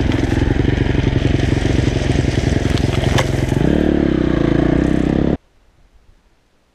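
Husqvarna 250 enduro motorcycle engine running steadily under way over loose stones, with a few sharp clicks about three seconds in and a change of revs near four seconds. The sound cuts off abruptly a little after five seconds, leaving only faint wind.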